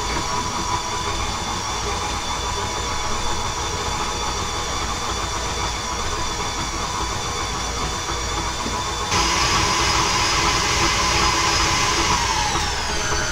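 KitchenAid stand mixer running, beating butter, sugar and an egg together, with a steady motor whine. It gets suddenly louder about nine seconds in, then the whine falls in pitch as the mixer winds down near the end.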